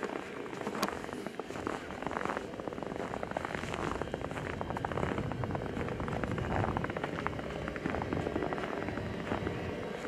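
Footsteps crunching in snow, with a low steady rumble of a vehicle engine running beside them.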